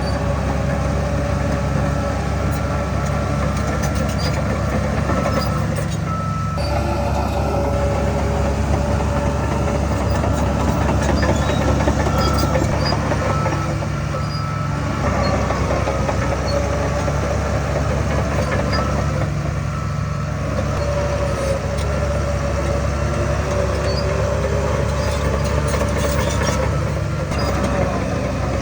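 Heavy earthmoving machinery at work: a large diesel engine running steadily under load, with a wavering whine above it and scattered light clicks.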